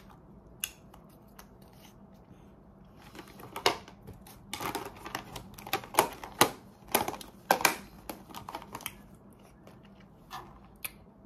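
Clear hard-plastic pill case being handled and opened. About three seconds in comes a rapid run of sharp plastic clicks and crackles lasting about six seconds.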